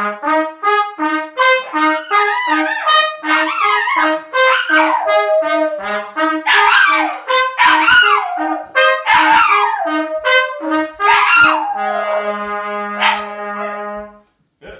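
Two trumpets playing a tune of short repeated notes while a dog howls along, its howls wavering and sliding up and down over the notes. The dog drops out and the trumpets end on a long held note about twelve seconds in.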